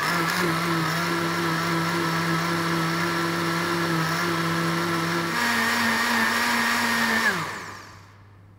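Espressions Multi Blender Square running its smoothie program, the motor and six-blade steel knife spinning steadily in the square glass jar of frozen berries and orange juice. About five seconds in the motor steps up to a higher speed. Near the end it cuts off and spins down with a falling pitch as the program finishes.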